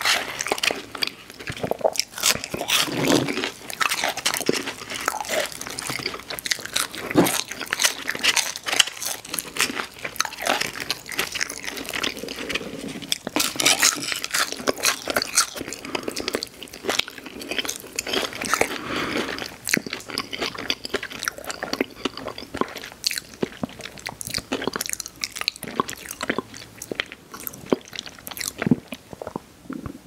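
Close-miked eating sounds of crispy fried food (chicken nuggets and fries): bites and chewing with dense, irregular crunching and crackling.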